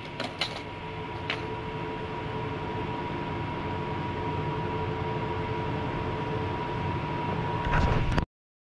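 A skateboard clacks on concrete two or three times as it is picked up, over a steady distant engine drone with a faint hum that grows slowly louder. Near the end a loud rustle close to the microphone, then the sound cuts off abruptly.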